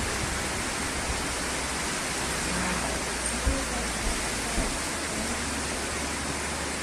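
Steady, even hiss of background noise with a low rumble underneath, and a few soft thumps around the middle.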